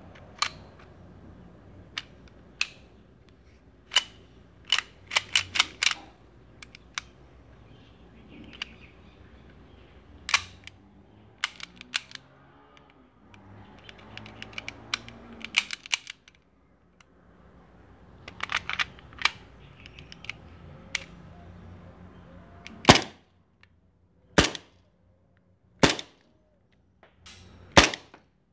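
Full-metal gas blowback airsoft pistol: clusters of sharp metallic clicks, then four loud single shots about a second and a half apart near the end.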